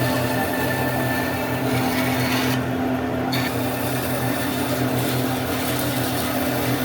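An electric power tool running steadily while working wood, a constant motor hum under a scratchy hiss of abrasion; the hiss drops away for under a second about three seconds in, then resumes.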